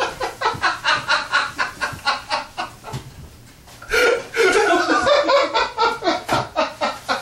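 Hearty laughter in quick repeated bursts. It breaks off briefly about three seconds in, then comes back louder.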